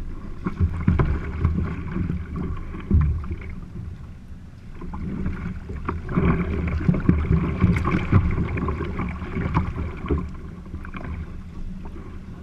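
Water splashing and rushing around a racing kayak as it is paddled, swelling loud twice, with wind buffeting the microphone.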